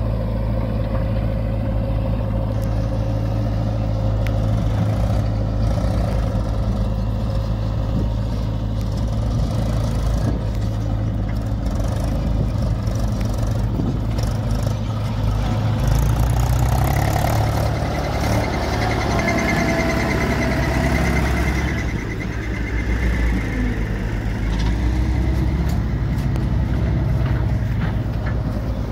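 Diesel engines of a Mahindra 275 DI tractor and a JCB 3DX backhoe loader running together. About halfway through the engine note rises as the tractor moves off hauling a trolley loaded with mud.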